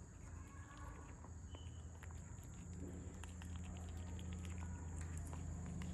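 Cats eating: small scattered chewing and licking clicks over a steady low hum and a faint steady high whine.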